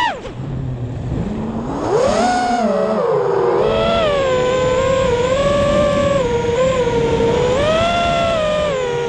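FPV quadcopter's brushless motors and propellers whining, heard from a GoPro mounted on the quad. The pitch drops sharply as the throttle is cut at the start, climbs again about two seconds in, then rises and falls with the throttle through the rest of the flight.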